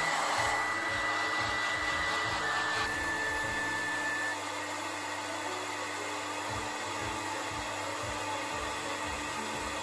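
Hair dryer blowing steadily, drying a dog's fur. A thin high whine in its sound stops about four seconds in, and the blowing is a little quieter after that.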